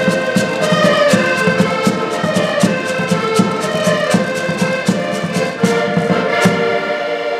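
Several button accordions playing a lively folk tune together, with short sharp strokes keeping a steady beat.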